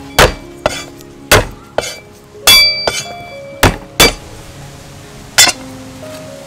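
Cleaver chopping garlic cloves on a thick wooden chopping board: about nine sharp knocks at an uneven pace, one about two and a half seconds in with a brief metallic ring.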